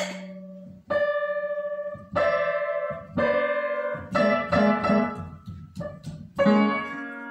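Upright piano keys banged by a toddler: clusters of several notes struck at once and left ringing. The clusters come about once a second, then quicker, several a second, from about four seconds in.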